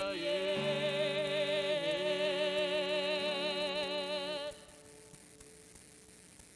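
A song ends on a long held sung note with vibrato over sustained accompanying chords. It cuts off about four and a half seconds in, leaving only faint hiss.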